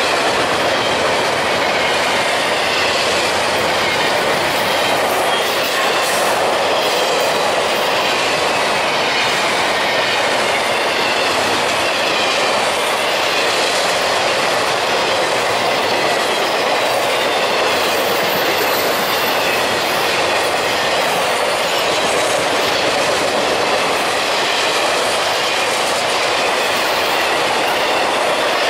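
A long freight train rolling past at steady volume: the continuous clatter of railcar wheels on the rails, with faint wavering wheel squeal above it.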